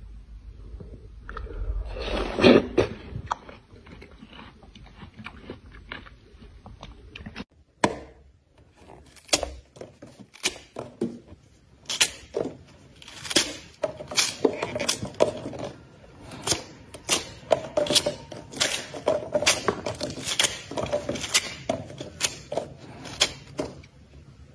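Watermelon rind cracking and the juicy flesh tearing as hands break a whole watermelon open. From about a third of the way in come repeated crisp snaps, one or two a second, with a louder crunch about two seconds in.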